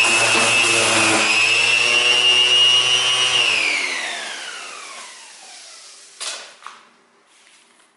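Corded electric orbital sander running steadily with a high whine, sanding the damaged plastic bumper to give the polyester putty a scratched surface to grip. About three and a half seconds in it is switched off and its whine falls in pitch as the pad spins down over a couple of seconds, followed by a short knock.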